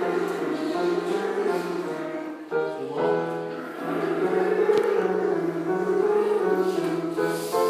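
Choir singing a warm-up exercise: held notes in several voices that move in steps. There is a brief break about two and a half seconds in and another near the end.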